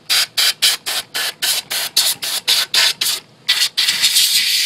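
Pressurised air hissing from the nozzle of a pumped-up garden pump sprayer used as an air duster, blowing dust out of a computer power supply. It comes in quick short puffs, about four a second, then a steady blast near the end.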